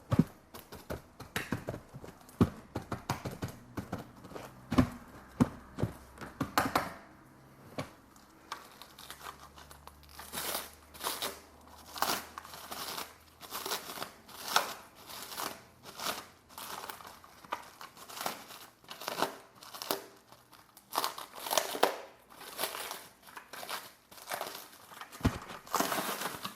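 Unboxing of a diecast model car: a quick run of small clicks and taps, then, from about ten seconds in, repeated crinkling rustles about once a second as plastic wrapping is handled and pulled.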